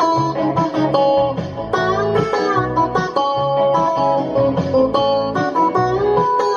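Chinese-made Stratocaster-style electric guitar with replacement pickups and electronics, played as a continuous run of notes over a repeating low line, with string bends about two seconds in.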